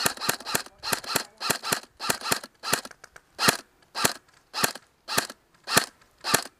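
Airsoft guns firing single shots, sharp cracks coming quickly and close together at first. After about three seconds they settle into one steady shot roughly every half second.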